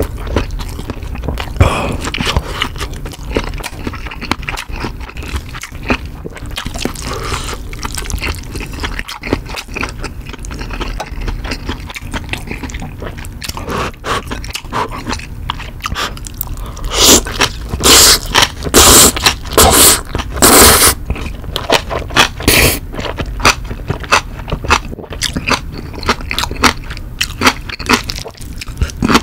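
Close-miked eating: wet chewing of a mouthful of frankfurter sausage, then black-bean instant noodles with spicy green-onion kimchi. Just past the middle comes a run of loud slurps and bites, followed by more chewing.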